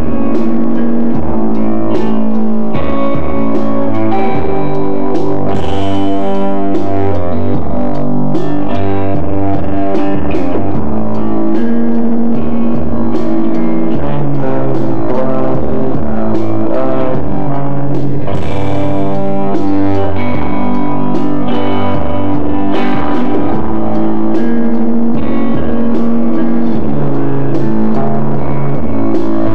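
Live band music: guitar through an amplifier with keyboard and a drum beat, held chords shifting under steady percussive hits.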